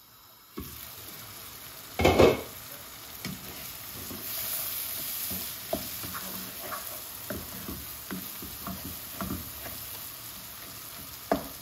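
Sliced onions and tomatoes sizzling as they fry in oil in a pan, stirred and scraped with a wooden spatula. A loud clatter about two seconds in, then steady frying hiss with light scrapes of the spatula against the pan.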